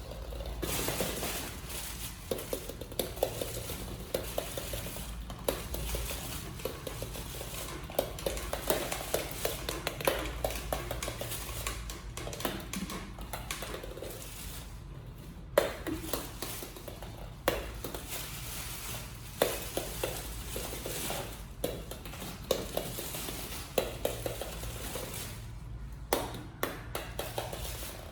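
Many small balls clattering and rattling against each other as cats play among them, with lots of light clicks and knocks.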